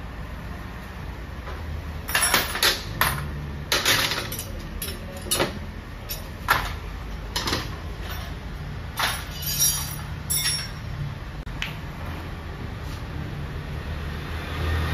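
Hand tools and parts clinking and knocking in a string of sharp clicks, most of them between about two and eleven seconds in, over a steady low hum.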